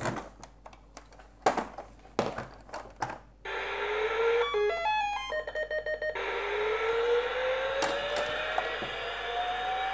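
Electronic sound effects of a vintage Fisher-Price Alpha Probe toy spaceship, switched on to test its sound electronics, which are working. After a few clicks come a short rising electronic tone, a quick run of stepped beeps, and then a long, slow rising whine.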